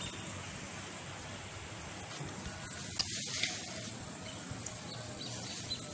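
Steady outdoor background noise, an even hiss with no clear event, and a brief click about three seconds in.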